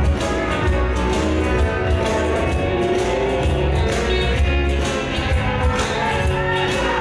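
Dance music with a steady beat, playing for a team dance routine.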